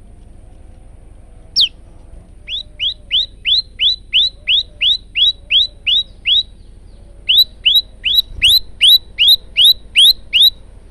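Male prenjak lumut singing: one falling whistle, then two runs of quick, sharply falling notes, about two and a half a second, with a brief pause between them. The second run is louder.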